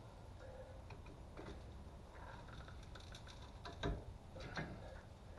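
Faint clicks and light metallic knocks of hand work on the vehicle's suspension parts, with two louder knocks about four seconds in.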